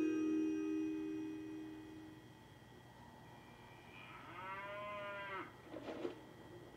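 Music-box chime notes ringing out and dying away, then a cow mooing once for about a second and a half, followed by a couple of short knocks, all heard through a TV speaker.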